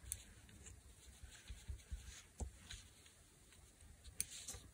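Faint rustling and a few light clicks of fabric and thread being handled during hand stitching.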